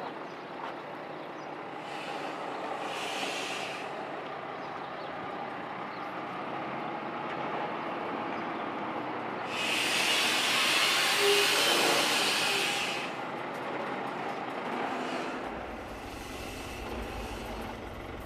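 Lorry's diesel engine running steadily as it manoeuvres slowly with the locomotive on its bed. There are short hisses of air about two and three seconds in and a longer, louder hiss from about ten to thirteen seconds in, as from the air brakes, and a low rumble sets in near the end.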